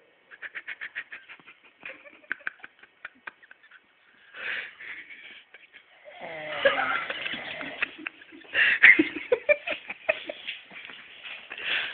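A man snoring: a fast rattling flutter at first, then louder, drawn-out snores from about halfway through.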